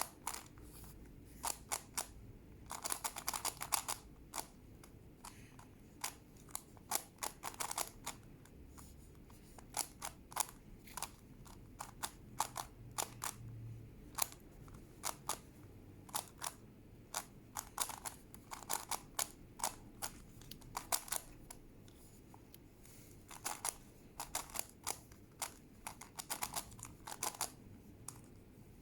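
Plastic Rubik's-style puzzle cube being turned by hand: flurries of sharp clicks as the layers turn, in uneven bursts with short pauses between moves.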